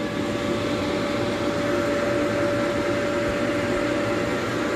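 A steady electric motor hum with a constant mid-pitched whine.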